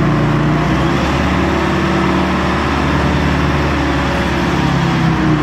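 Large forklift's engine running steadily while it carries a heavy rollback bed on chains, its pitch shifting slightly about a second in and again near the end.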